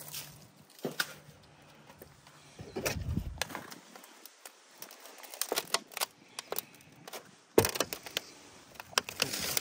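Scattered light crackles of dry leaves and knocks from corrugated sheet-metal roofing as someone works and moves along a roof gutter, with a dull thud about three seconds in and a sharp knock about seven and a half seconds in.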